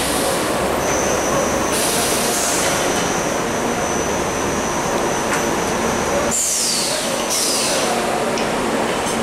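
Bodor T6A automatic-loading tube laser cutting machine running: a steady mechanical din with a high whine that glides down about six seconds in, and two short spells of hiss.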